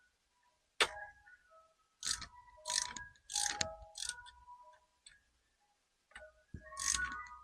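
Small metal hardware clinking and rattling in short bursts, with brief ringing tones, as bolts and tools are picked through and handled.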